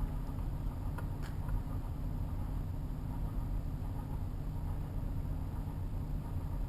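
Steady low background hum of an indoor shooting range between shots, with two faint clicks about a second in.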